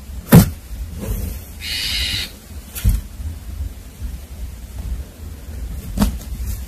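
A sharp knock, then a short high-pitched kitten cry about two seconds in. Lighter knocks and low rumbling handling noise run underneath.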